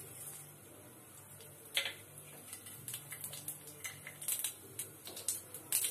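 Mustard seeds and urad dal frying in hot oil in a pan: a faint sizzle with scattered pops and crackles, which come more often near the end as the mustard seeds start to splutter.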